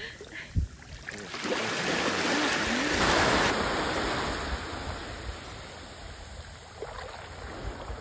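A wave breaking on the beach: surf rushes in, swells to a peak about three seconds in, then washes out and fades.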